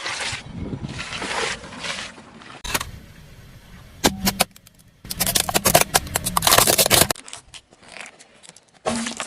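Objects being crushed under a car tyre: crunching, crackling and scraping in several short clips that cut in and out abruptly, with a dense run of sharp cracks and snaps in the middle.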